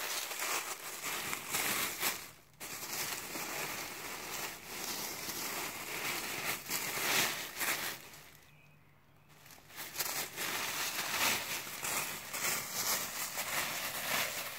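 European badger rooting through dry fallen leaves, its digging and nosing making a crackling, crunching rustle that pauses briefly a little past the middle.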